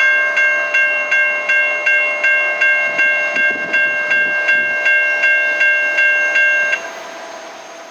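Railroad grade crossing warning bell ringing rapidly, close to three strikes a second, then stopping near the end.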